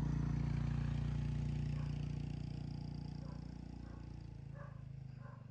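An engine running with a low steady hum that fades away, as if moving off. In the second half a dog barks a few times.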